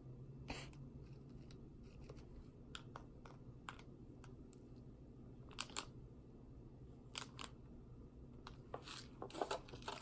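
Small foil candy-kit packet being handled and torn open by hand: scattered faint crinkles and clicks, bunching into a louder run of crinkling near the end.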